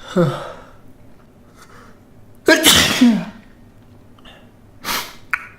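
A man sneezing repeatedly: a short sneeze right at the start, a big, loud sneeze about two and a half seconds in, and smaller sharp bursts near the end.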